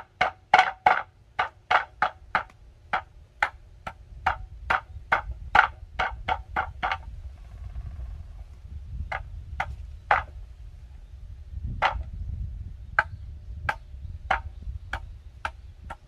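Deodeok roots being pounded flat on a wooden board before grilling: a run of sharp knocks about three a second, a pause of about two seconds, then slower, more spaced-out knocks.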